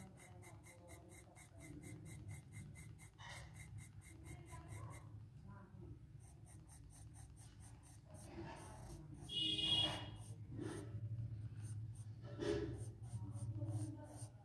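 Charcoal pencil scratching on drawing paper in quick short shading strokes, several a second, with a brief pause about five seconds in. A short, louder, higher-pitched sound comes about ten seconds in.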